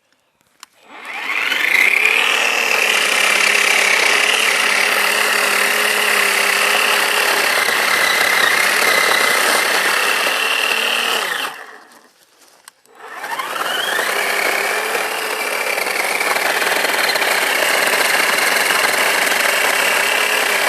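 Ozito 10-inch battery chainsaw's electric motor and chain spinning up and cutting through a hardwood limb, run one-handed. It spins up with a rising whine, runs steadily for about ten seconds, stops briefly, then spins up again and cuts on.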